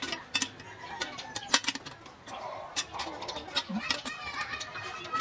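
A series of sharp, irregular clicks and knocks from a gas cooker's black grill pan as it is handled and turned over.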